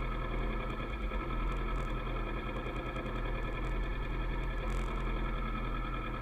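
Kawasaki ER-6f motorcycle's parallel-twin engine running steadily on the move, with a low rumble underneath.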